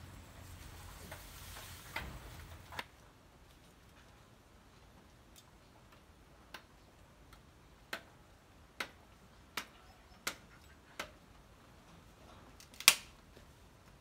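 Light rain hiss that stops abruptly about three seconds in, then a series of sharp, short clicks, roughly one a second, the loudest near the end.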